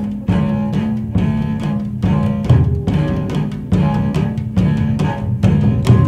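Soundtrack music: low sustained string notes that shift in pitch, over a steady pulse of hits about twice a second.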